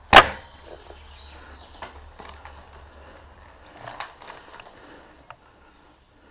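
A single loud, sharp crack about a fifth of a second in, dying away quickly, followed by a few faint clicks and rustling.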